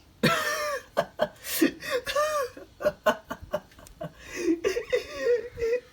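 A person laughing and chuckling in short broken bursts, with several sharp clicks or knocks in between.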